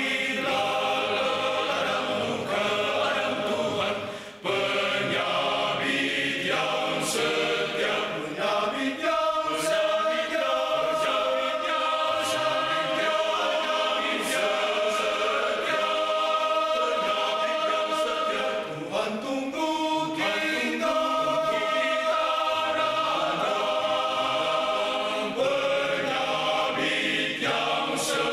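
Men's choir singing in several-part harmony, with a short break for breath about four seconds in.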